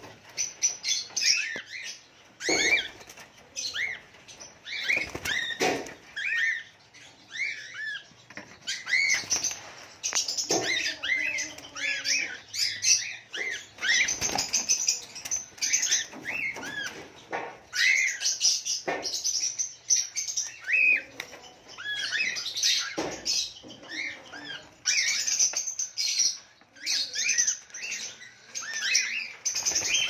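Cockatiels chirping and calling without pause, many short rising-and-falling chirps overlapping, with wings flapping and a few sharp flutters now and then.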